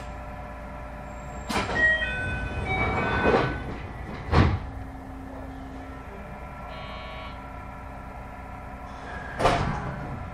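Inside a JR West 221 series electric train car at a stop: hisses of air and a chime of several short tones, then a heavy thud about four seconds in as the sliding doors work. Another sharp hiss of air comes near the end.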